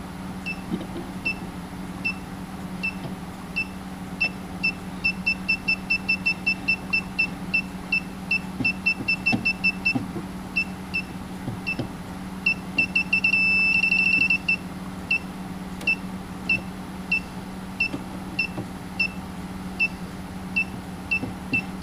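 Southwire 41210S circuit breaker finder receiver beeping as it is slid along the breakers: short high beeps that speed up as it nears the signalled circuit, run together into a steady tone for about two seconds midway, then slow down again as it moves away, without settling on the right breaker. A steady low hum runs underneath.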